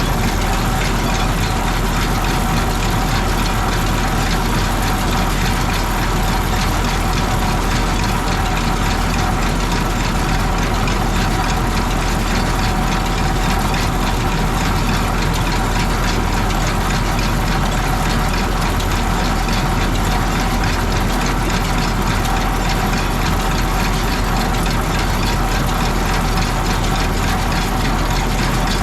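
Hay baler running empty behind its tractor: a steady engine with the baler's drive chains and gears turning, the chains running dry and in need of oil.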